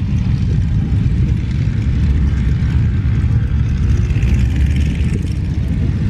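Radial engines of several vintage biplanes idling together, a steady low running sound with a fast, even pulsing.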